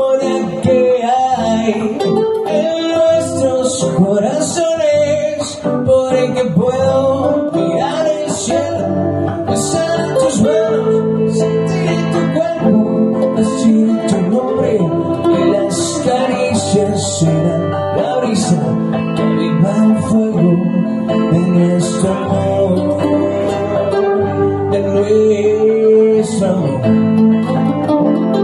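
Song with strummed acoustic guitar and a singing voice.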